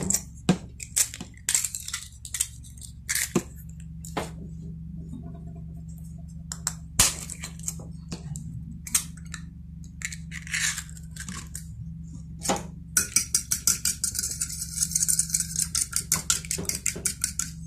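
A metal fork tapping and prying at eggshells over a ceramic saucer, giving scattered sharp clicks. About thirteen seconds in, the fork starts beating the eggs in the saucer, a fast, even run of clinks, several a second.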